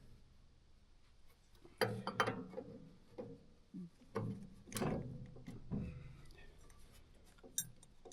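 A few sharp metallic clinks and knocks, some ringing briefly, the loudest around two and five seconds in, from handling a sawmill drive pulley and belt as it is fitted and tensioned.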